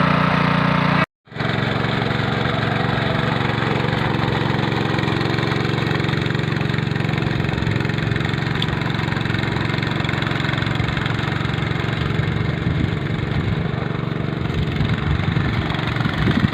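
Hand tractor engine with rotavator running steadily. The sound cuts out for a moment about a second in, then carries on, growing rougher and more uneven near the end.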